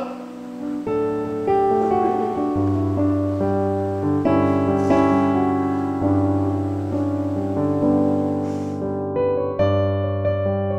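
Background music: slow piano chords with sustained notes over a held bass.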